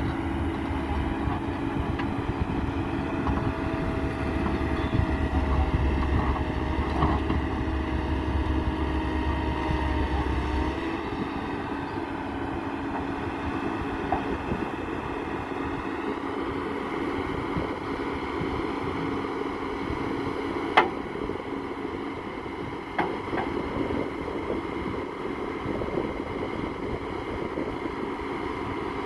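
Komatsu hydraulic excavator's diesel engine running steadily under load, with a steady hydraulic hum, as the machine works on a truck's flatbed. The deep low rumble drops away about a third of the way in, and a single sharp knock, the loudest sound, comes about two-thirds through, with a few smaller knocks just after.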